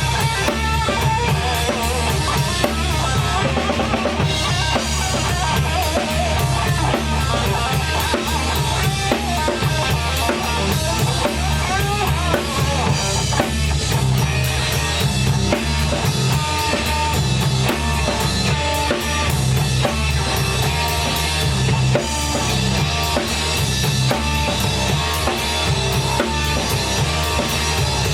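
A rock band playing a heavy, driving song live, the drum kit's bass drum and snare prominent under steady full-band music.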